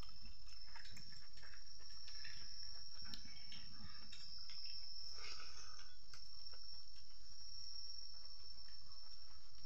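Insects trilling with one steady high-pitched tone, over soft eating sounds: fingers mixing rice and curry in a metal bowl, and chewing.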